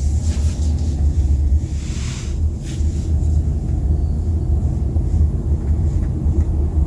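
Steady low rumble of road and tyre noise inside the cabin of a Kia Sportage on the move. The panoramic sunroof, its rubber seals freshly greased, makes no creak.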